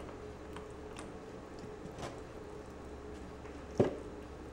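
A few light clicks of a metal utensil against a disposable aluminium foil pan as barbecue sauce is spread over ribs, with one sharper clack near the end. A steady low hum runs underneath.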